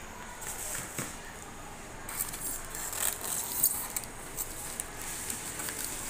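Plastic wrapping on a bottle of printer ink crinkling and rustling as the bottle is handled and lifted out of a styrofoam packing insert. The rustle is irregular, with a few sharp crackles, and gets busier about two seconds in.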